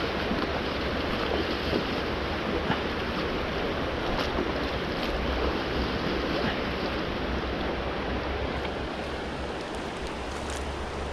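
Fast, shallow river running over gravel: a steady rush of water, with a low rumble of wind on the microphone.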